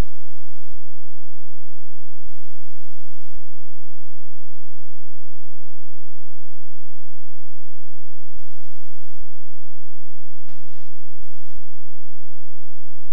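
Loud, steady mains hum with many overtones, with a brief burst of hiss about ten and a half seconds in.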